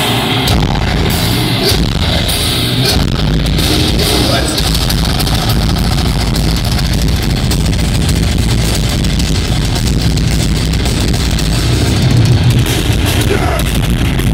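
Heavy metal band playing live, heard from the audience: distorted guitars, heavy bass and fast drumming, kicking in just after the start and running dense and loud.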